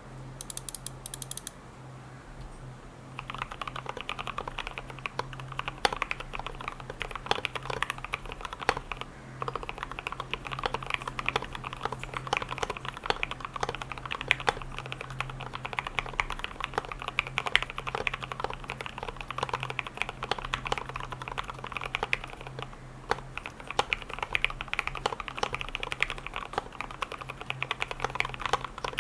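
Typing on a custom KBD75v2 mechanical keyboard with an aluminium plate, lubed and filmed Gateron Milky Yellow linear switches and OSA-profile keycaps: a fast, continuous run of keystrokes that starts about three seconds in, with a brief lull about twenty-three seconds in.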